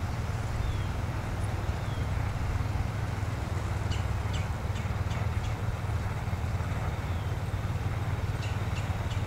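Tecsun PL-660 shortwave receiver giving out steady static hiss from its speaker while tuning across the 10-metre amateur band around 28 MHz, with no station coming through. A steady low rumble sits underneath, and a few faint high chirps come through the hiss.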